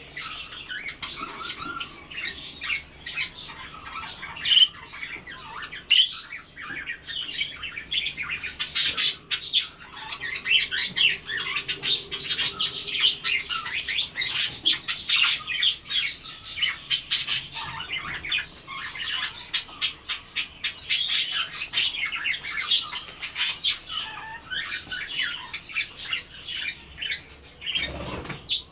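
Budgerigars chattering: a continuous stream of quick, scratchy chirps and warbles.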